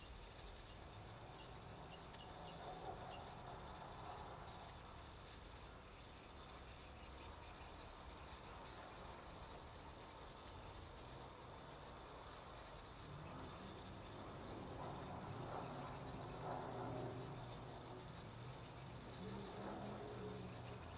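Crickets chirping in a faint, rapid, pulsing trill.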